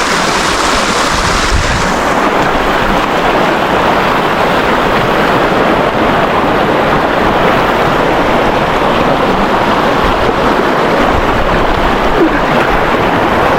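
Steady rush of fast-flowing creek water, heard close up and loud.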